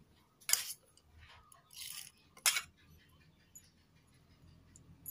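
A metal spoon clinking and scraping against a small bowl while scooping crushed peanuts: a sharp clink about half a second in, a short scrape, then a second clink about two seconds later.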